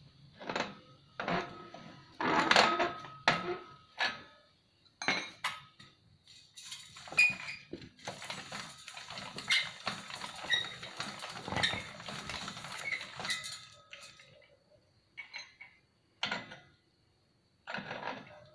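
Homemade hand-cranked three-roll sheet-metal roller bending a 3 mm steel flat bar into a ring: irregular metal clanks and clinks from the crank, gears and rollers, with a denser stretch of scraping, ringing metal in the middle and a few sparse clicks near the end.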